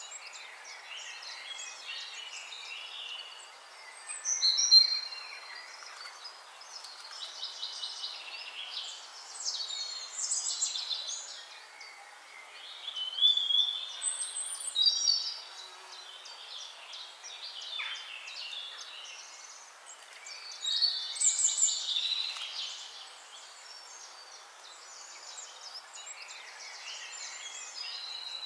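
Several songbirds singing and chirping over a steady outdoor hiss, with short trills and whistles coming in bursts every few seconds.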